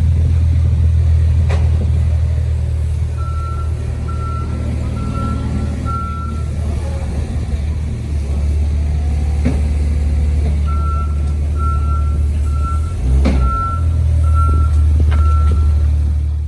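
A vehicle's reversing alarm beeping about once a second in two runs, four beeps then a pause and six more, over a heavy steady low rumble. A few sharp knocks are heard along the way.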